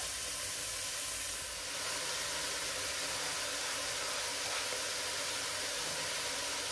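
Freshly added wet spinach sizzling and steaming in a hot enamelled cast-iron pot of fried onion: a steady hiss as the leaves' water hits the hot pot.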